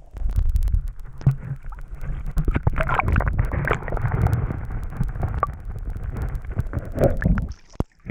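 Muffled rumbling and sloshing of stream water heard through an action camera held underwater, with many scattered clicks and knocks. It cuts off abruptly near the end as the camera comes out of the water.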